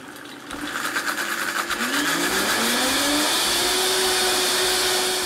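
Countertop blender puréeing a liquid anchovy-mustard dressing. The motor noise builds over the first second, its whine rises in pitch about two seconds in as the speed dial is turned up, then it runs steady.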